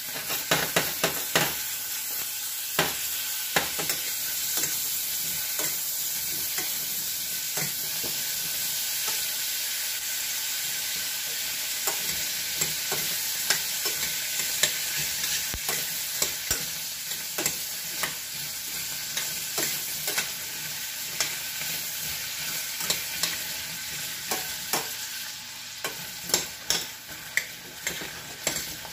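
Sliced carrots sizzling in a steaming stainless steel saucepan with a lump of butter, with a steady hiss. A metal spoon stirs them, clinking against the pan again and again, more often near the end.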